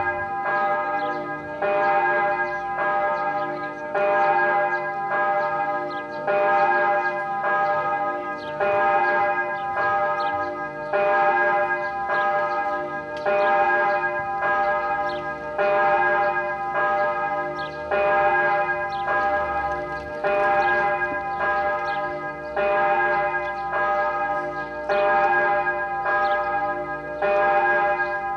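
Church bell swinging in its tower and tolling, struck about once a second, with louder strokes alternating with softer ones and the tone ringing on between strikes.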